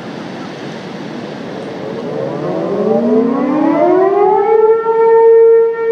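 Outdoor civil defense warning siren winding up: its tone rises in pitch and grows louder from about a third of the way in, then levels off into one steady tone, over wind noise on the microphone.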